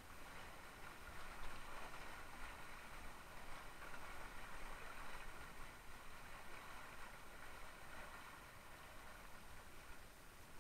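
Water rushing and splashing along the hull of a Mistral Superlight windsurf board as it sails, a steady, uneven hiss with a low rumble underneath.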